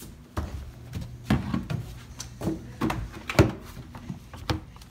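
Irregular knocks and thumps of plastic laundry baskets being handled and bumped together, the loudest about three and a half seconds in.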